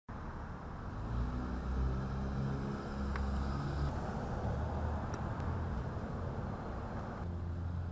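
Street traffic noise with a motor vehicle engine running close by, a steady low hum that shifts in pitch.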